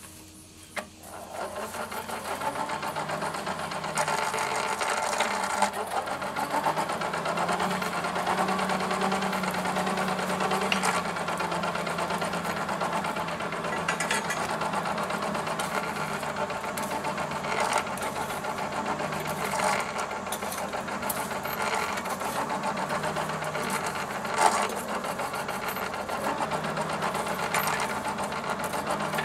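A forge blower runs steadily, starting up about a second in, feeding air to the fire that heats a railroad spike. A few sharp clinks of metal come through over it.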